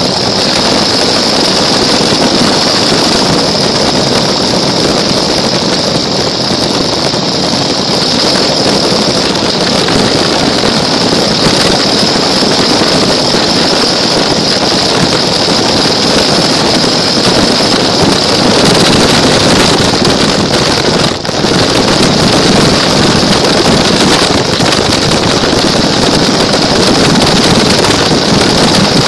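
Toy car driving with a camera mounted on it: a steady high motor whine over loud, continuous rumbling noise from the wheels and the ride, with a brief drop about two-thirds through.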